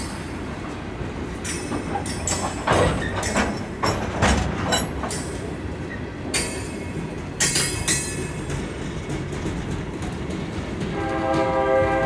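Freight train's open-top hopper cars rolling slowly past, their wheels clicking over the rail joints with a run of sharp knocks and clanks. About eleven seconds in, a train horn begins a held chord.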